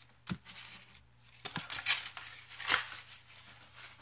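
Crinkly plastic and foil trading-card packaging being handled: a sharp click a moment in, then several short crinkling rustles, the loudest just before three seconds.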